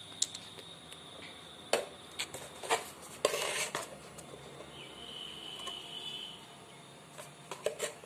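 Clear plastic bottle being handled and knocked against a hard surface: a few sharp clicks and clatters, busiest around three seconds in and again near the end. A faint steady high whine sounds midway.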